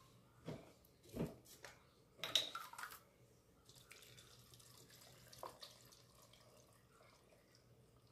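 Water poured in a thin trickle into a glass blender jar over chopped vegetables, a faint steady pour starting about three and a half seconds in. Before it come a few soft knocks and a brief louder clatter.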